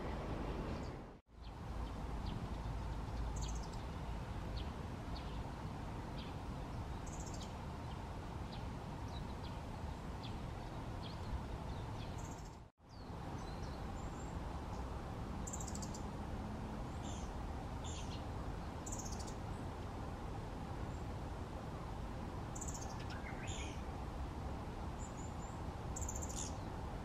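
Asian brown flycatcher singing: short, thin, high chirps and twitters, scattered at first and coming thicker in the second half, over a steady low background rumble. The sound drops out to silence briefly twice, early on and near the middle.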